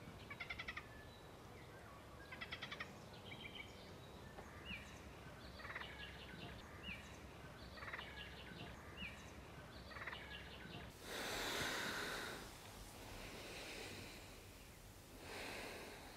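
Songbirds singing faintly: repeated rapid trills and short rising chirps. About eleven seconds in the birdsong gives way to a rushing hiss that swells, fades, and swells again near the end.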